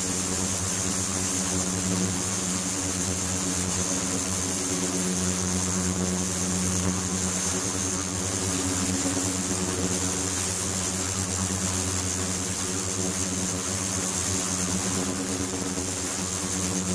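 Handheld ultrasonic cleaner running with its probe in flowing water: a steady, buzzy electrical hum with several evenly spaced overtones, over a constant hiss of running, bubbling water.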